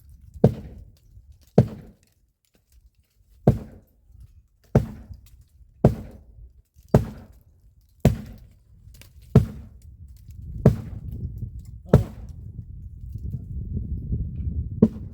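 Axe chopping wood: eleven heavy strikes at roughly one a second. A low rumbling noise builds up under them over the last few seconds.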